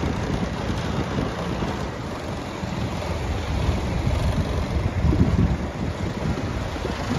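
Wind buffeting the microphone as a johnboat runs under outboard power across light chop, the motor and the water on the hull mixed into a steady low rumble with gusty surges.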